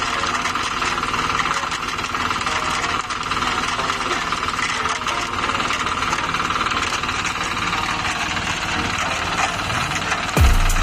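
A machine engine running steadily, with a constant whine. Music with heavy bass beats comes in near the end.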